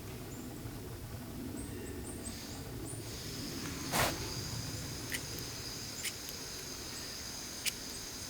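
Insects trilling in a still evening, a steady high-pitched chorus setting in about three seconds in after a few short chirps. A sharp click sounds about four seconds in, and a few fainter ticks follow.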